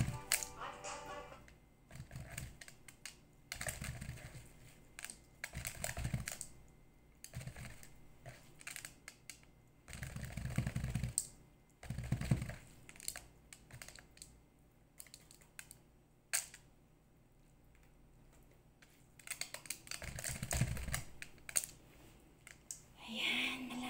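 A metal spoon clinking and scraping against a stainless steel mixing bowl in irregular bursts with quiet gaps, as rice stuffing is scooped out.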